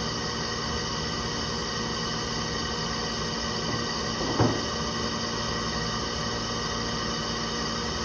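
Steady hum made of several fixed tones at an even level, with one short knock about four and a half seconds in.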